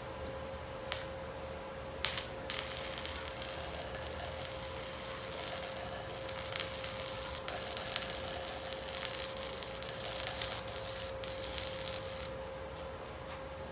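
Electric arc welding: the arc strikes with a few sharp cracks about two seconds in, crackles steadily for about ten seconds, then breaks off. A steady hum runs underneath throughout.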